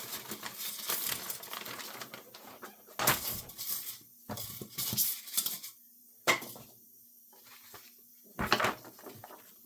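Unboxing handling noise: packaging, paper and small items being handled, with irregular rustles, light clatter and clicks, and a sharp click about six seconds in.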